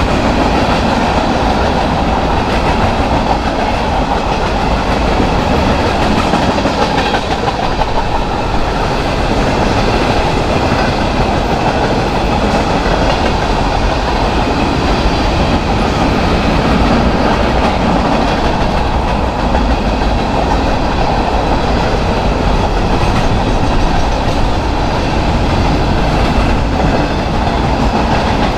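Train cars rolling past on the rails: a steady, loud rumble and clatter of wheels on track.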